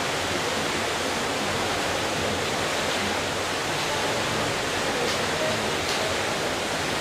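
Steady, even rushing noise of a large indoor diving-pool hall, with a couple of faint ticks about five and six seconds in.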